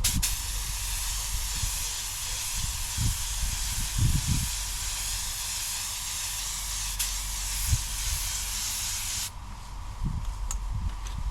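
Iwata LPH 80 spray gun spraying base coat: a steady air hiss that starts sharply and cuts off suddenly about nine seconds in.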